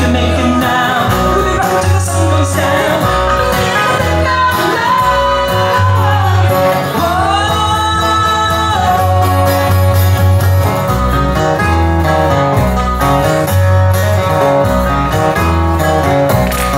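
Live band playing a country song: guitars over a steady, pulsing bass line, with a voice singing and a sliding, bending melody line about halfway through.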